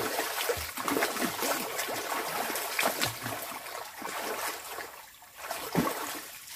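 Water splashing and trickling as a person bathes in a lake, in irregular splashes.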